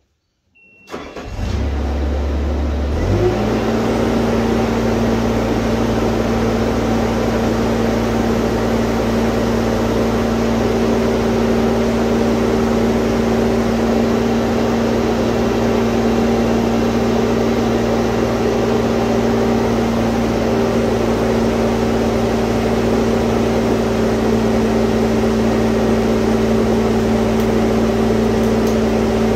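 Bobcat compact track loader's diesel engine starting about a second in and idling briefly. About three seconds in it is throttled up, and it then runs at a steady high speed for the rest.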